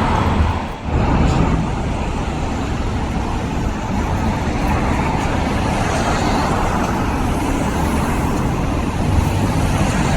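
Steady road traffic noise, an even rush with a heavy low rumble.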